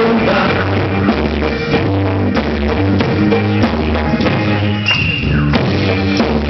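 Rock band playing: drum kit, bass and electric guitar, with bass notes changing in a steady rhythm.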